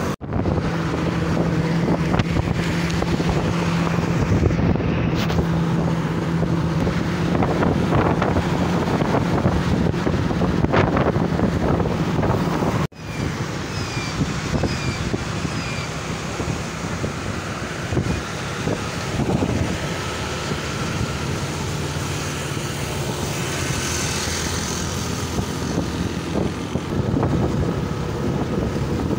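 A motor vehicle travelling along a road: a steady engine hum and road noise, with wind buffeting the microphone. The sound cuts out abruptly for an instant near the start and again about halfway through.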